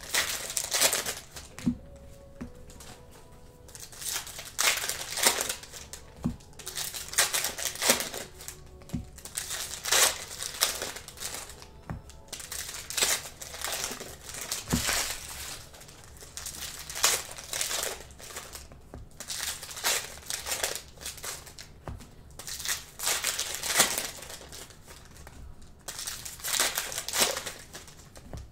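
Plastic wrappers of trading-card packs and boxes crinkling and rustling as they are handled, in repeated short spells every second or two.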